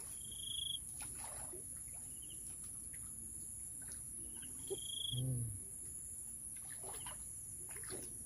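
Outdoor ambience of insects keeping up a steady high-pitched drone, with a bird giving short clear whistled notes, two louder ones about half a second and five seconds in, and a brief low sound just after the second.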